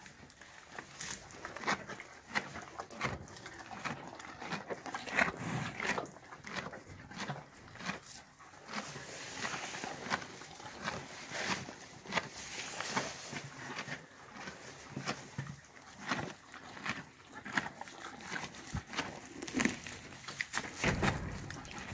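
A horse chewing and pulling mouthfuls of alfalfa hay from a hay net: irregular crunching and rustling all through.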